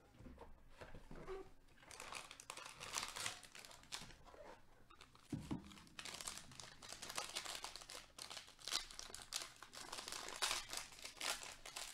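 Foil wrapper of a trading-card pack crinkling and crackling as it is handled and pulled open, with a soft thump about five seconds in.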